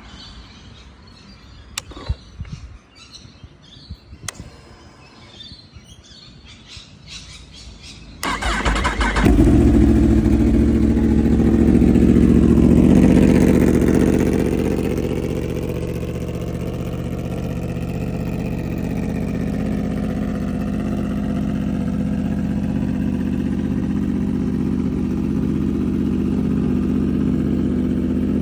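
Yamaha R1 motorcycle's inline-four engine being started: a few clicks, then the starter cranks for about a second about eight seconds in and the engine catches. It runs at a raised idle for several seconds, then settles to a steady idle.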